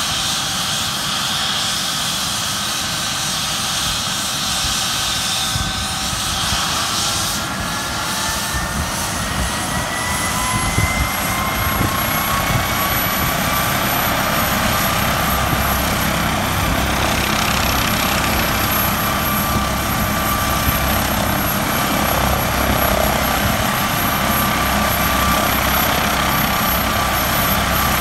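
MD902 Explorer helicopter's twin turboshaft engines spooling up on the ground during start-up. A turbine whine climbs in pitch from about a quarter of the way in and then levels off, joined by a thin high whistle, while the rotor's low beat builds in the second half.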